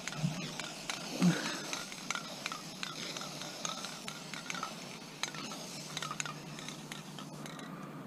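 Aerosol spray paint can spraying with a steady hiss, with scattered clicks and rattles from the can. The hiss cuts off near the end.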